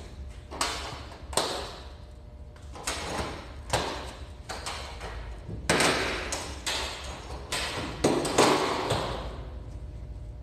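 The metal clamp latches on the loading door of a CCC BK2000 tent washer being fastened one after another: a series of about ten sharp clanks and thuds with a short metallic ring, ending shortly before the end.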